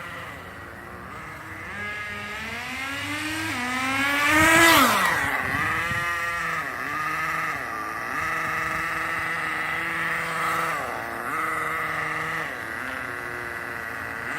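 Small nitro engine of a Redcat Lightning STR RC car revving up, loudest and dropping sharply in pitch as it passes close about four and a half seconds in. It then runs on with its pitch dipping and rising several times as the throttle is worked.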